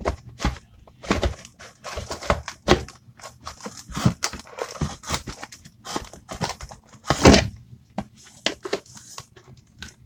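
Irregular knocks, thuds and rustling from objects being handled right at the microphone, with the loudest knock about seven seconds in: handling noise as the phone camera is moved and set in position.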